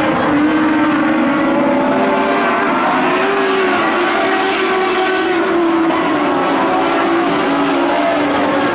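Several dirt-track modified race cars' V8 engines racing around a dirt oval. The engine pitch rises and falls as the cars accelerate off the turns and pass by.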